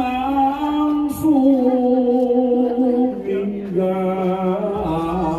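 A single voice singing a slow, chant-like melody of long held notes that step gradually down in pitch.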